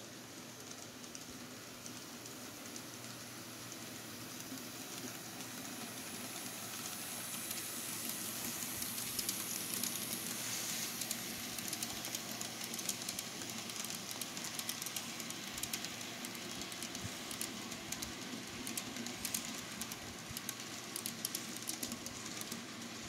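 Kato N-scale F7 A-B model diesel locomotives and freight cars running on model track, a steady hiss and whir of motors and wheels. It grows louder as the train comes close about ten seconds in. Through the second half come rapid light clicks of wheels over the rail joints.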